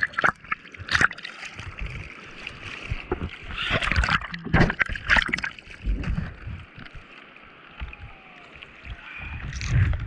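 Sea water splashing and sloshing around a surfboard as it is paddled lying down, hand strokes in the water making irregular splashes over a steady watery hiss, with several louder splashes near the middle.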